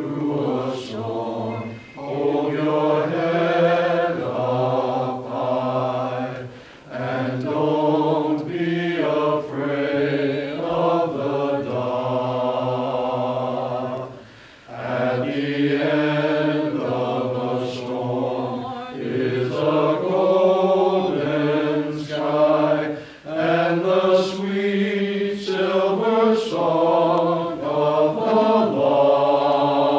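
A small choir of men singing a slow song in harmony, with long held notes in phrases and short breaks for breath.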